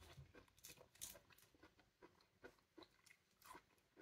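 Faint, scattered soft clicks and crackles of someone eating pomelo: chewing the juicy flesh while fingers peel the membrane off a segment.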